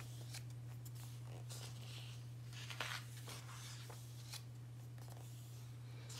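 Pages of a paperback book being handled and turned, with a few faint, short paper rustles over a steady low hum.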